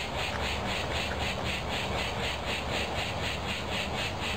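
A steady, evenly pulsing insect chorus, about five or six pulses a second, over a low steady rumble.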